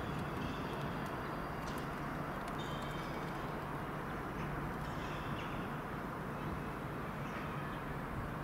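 Irish Rail 071 class locomotive's EMD twelve-cylinder 645 diesel engine running steadily as the train approaches at low speed, a constant low rumble. Short high chirps or squeaks come and go above it now and then.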